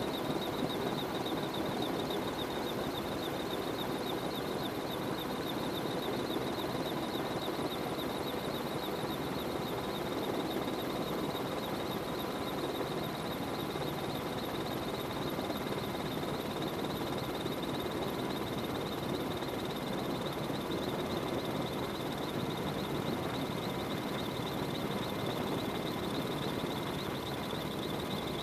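Steady cabin noise of a Merlin helicopter in flight: a constant rush of rotor and turbine noise with several high, steady whining tones from the engines and gearbox.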